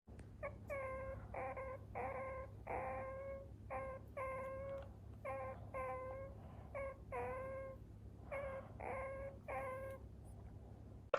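Meerkat calling: a steady series of about fifteen short, pitched calls over ten seconds, some dipping in pitch at their start.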